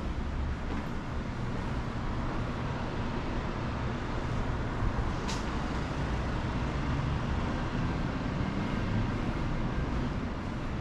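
Steady rumble of city traffic with a hiss over it, and one sharp click about five seconds in.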